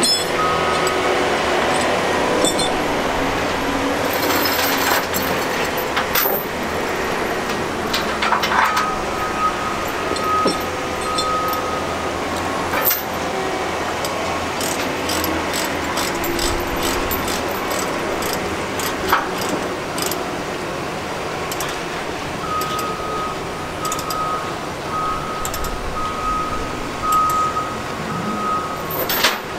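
Heavy machinery running steadily, with a reversing alarm beeping in two spells, one about a third of the way in and another in the last quarter. Scattered clicks and clanks come in between.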